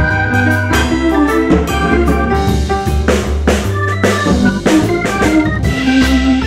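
Background music: sustained organ-like keyboard chords over a bass line and a drum-kit beat.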